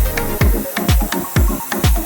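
Electronic dance music with a steady four-on-the-floor kick drum, about two beats a second, and ticking hi-hats.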